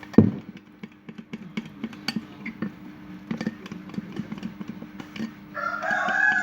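A stirrer clicking and scraping against the sides of a container as egg white and dish soap are mixed, with one louder knock just after the start, over a steady low hum.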